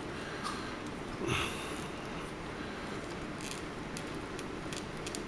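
Faint clicks and rubbing of small plastic parts as a weapon is worked into the hand of a Marvel Legends Hercules action figure, with one short rush of noise about a second and a half in.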